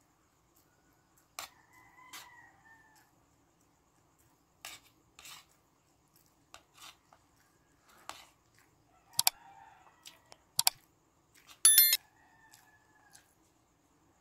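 Spoon and fork clicking and scraping against a plate during a meal, with the loudest clinks in the second half and the last one ringing briefly. A bird calls faintly in the background three times.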